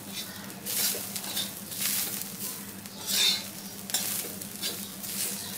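A spatula scraping and stirring browned onions, garlic, ginger and grated coconut in a wide black pan, in irregular strokes about once a second, over a light sizzle: the masala being dry-roasted.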